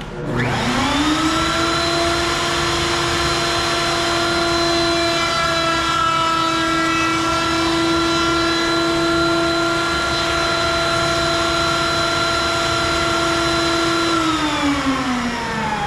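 Router on a router table spins up with a rising whine and runs at a steady high pitch while a barn-board piece is fed along the fence for a clean-up pass over its rippled face. Near the end it winds down with a falling whine.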